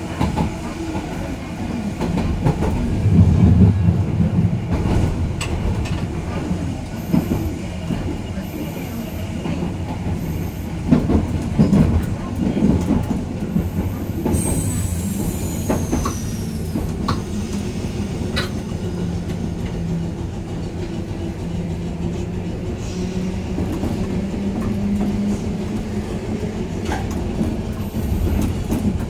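Randen high-floor tram running on its track, heard from inside the front cab: a steady low rumble and hum with scattered sharp clicks from the wheels on the rails, and a brief high wheel squeal that falls in pitch about halfway through.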